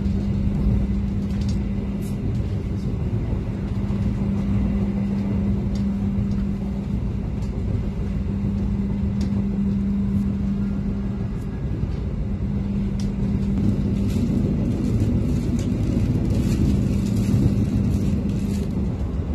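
A passenger train running, heard from inside the coach: a steady low rumble of wheels on rail with a constant hum that fades briefly about halfway, and scattered faint clicks.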